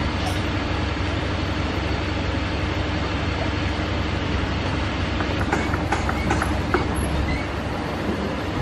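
Steady low rumble of a large engine running, with a constant hum, and a few faint clicks and knocks about five and a half to seven seconds in.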